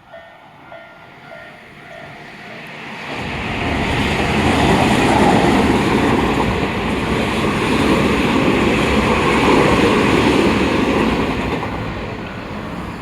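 A railway level-crossing warning bell dings about twice a second. Then a Tobu Tojo Line train passes over the crossing, its rumble building from about three seconds in, drowning out the bell and easing off near the end.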